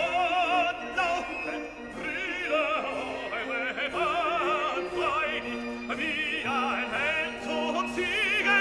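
Operatic singing with orchestral accompaniment: a singer holding long notes with wide vibrato over sustained orchestral lines.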